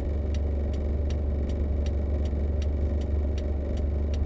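Steady low rumble of a car's engine and road noise inside the cabin, with the turn-signal indicator clicking evenly about two to three times a second.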